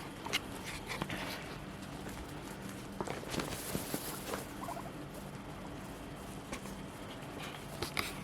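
Guinea pigs moving about in fresh hay: scattered soft rustles and clicks, with a faint squeak or two about midway.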